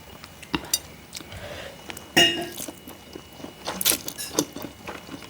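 Cutlery clinking against a bowl. One sharp ringing clink comes about two seconds in, among smaller clicks and knocks.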